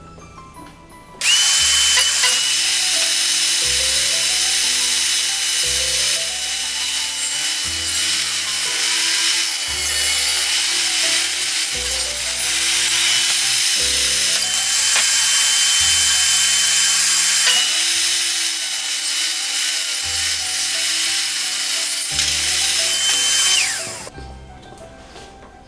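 Electric power tool running continuously for about 22 seconds, starting abruptly about a second in and winding down near the end, with a steady high whine over a loud hiss. Background music plays throughout.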